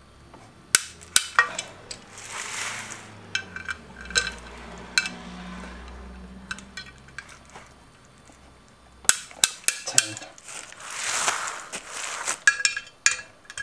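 Click-type torque wrench, set to 17 N·m, tightening the bolts of a two-piece brake rotor: a run of sharp metallic clicks and clinks from the wrench and socket. Twice there is a brief rustle as the rotor is turned to the next bolt.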